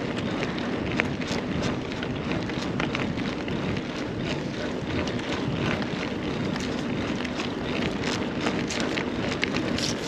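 Carrera Hellcat mountain bike riding over a rough track: a steady rush of tyre and wind noise with frequent small clicks and rattles.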